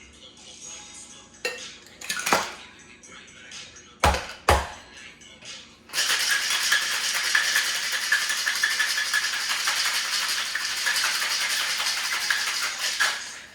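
A few knocks and clinks, then ice shaken hard in a cocktail shaker: a loud, steady rattle that starts about six seconds in and stops near the end.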